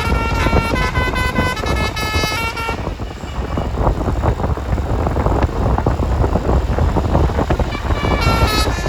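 Basuri "telolet" multi-tone bus horn playing its stepping, tune-like pattern of notes. The horn stops about three seconds in, leaving loud noise from the passing bus. It starts up again just before the end.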